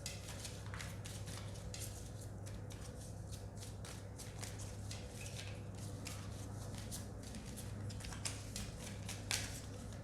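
Tarot cards being shuffled and drawn: a run of quick, soft papery clicks and flicks of card stock, with a sharper snap near the end. A steady low hum runs underneath.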